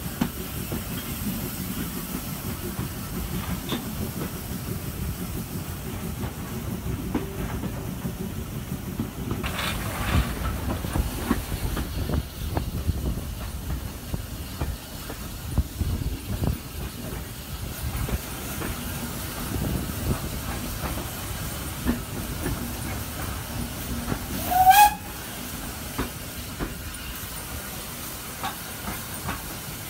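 Steam train on the move, heard from a carriage window: the steam locomotive's exhaust and hiss over the coaches' wheels on the rails. A short whistle sounds about twenty-five seconds in.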